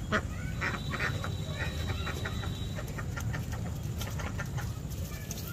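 Domestic ducks giving rapid, short quacking calls as a dog chases them, the calls thickest in the first few seconds and thinning out. A steady low hum runs underneath.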